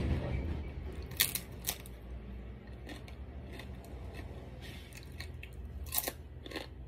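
Crisp tortilla chips being bitten and chewed: a few sharp crunches, the loudest about a second in and again near the end.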